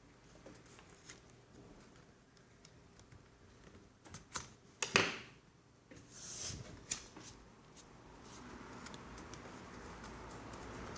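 Small sharp clicks and taps of parts being handled during laptop disassembly, with a cluster of louder knocks about four to five seconds in and a brief rustle just after.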